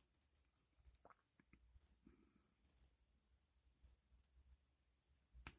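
Faint, scattered clicks of a combination lock's number wheels being turned to zero, with a few sharper clicks near the end.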